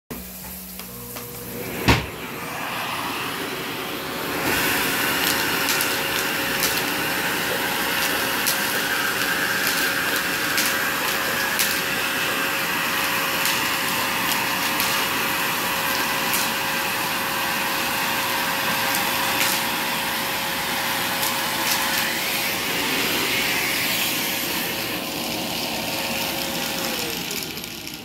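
Vacuum cleaner switched on with a sharp click about two seconds in, its motor running up to a steady whine. Small plastic beads click and rattle as they are sucked up off the laminate floor. Near the end the motor is switched off and winds down, its pitch falling.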